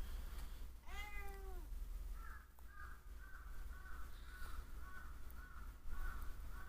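A domestic cat meowing once, its pitch falling, about a second in. A run of short repeated high notes, about two a second, follows to the end.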